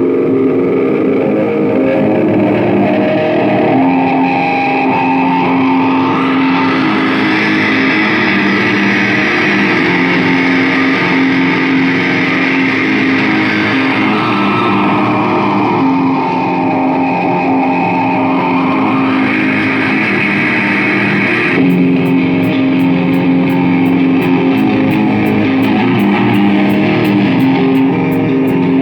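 Live rock band instrumental intro led by electric guitar through effects, with held chords. About two-thirds of the way through, a steady high ticking of about three a second joins in.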